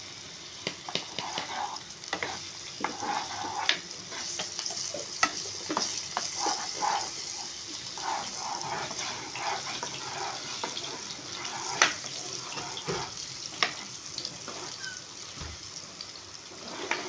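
Onion, garlic, capsicum and ginger-garlic paste sizzling in hot oil in a non-stick frying pan while a metal spoon stirs and scrapes them, with scattered sharp clicks of the spoon against the pan.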